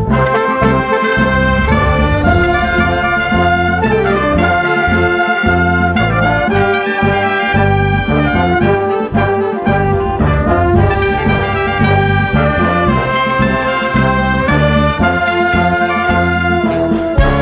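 Live ensemble music led by brass, with sustained horn chords and melody over a pulsing bass line and a steady drum beat.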